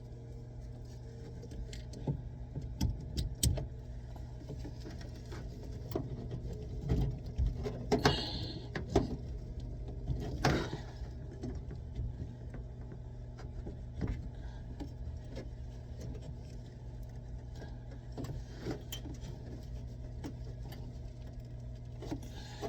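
Scattered clicks, knocks and light clatter of plumbing parts and tools being handled during pipe work, over a steady low hum.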